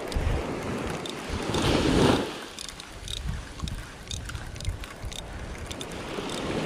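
Small surf washing up a sandy beach, with wind buffeting the microphone. One wave surges louder about two seconds in, and a few light clicks follow.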